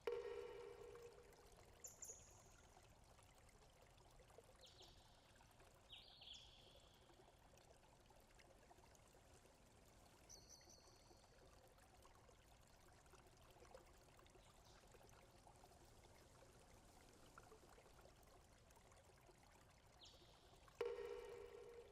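Faint steady hiss like running water, with a few short high chirps. A ringing tone sets in suddenly at the start and again near the end, each fading over about a second.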